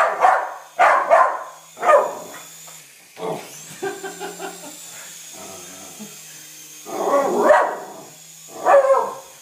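Schnoodle barking repeatedly in short bursts at a remote-control toy helicopter. The helicopter's small electric motor whines faintly and steadily underneath.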